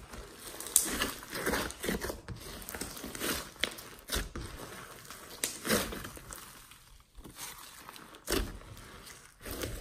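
Hands squeezing, stretching and kneading glossy slime mixed with clay, glitter and beads, giving irregular sticky squelches and sharp little clicks and pops as the slime pulls apart and air pockets burst.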